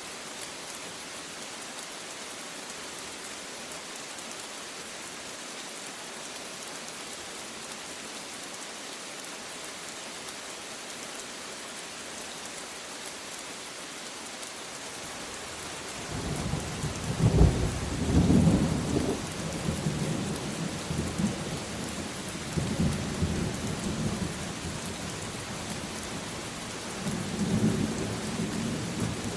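Steady rain hiss, then about halfway through a roll of thunder breaks in: a loud low rumble peaking in the first couple of seconds, then rolling on in swells over the rain until the end.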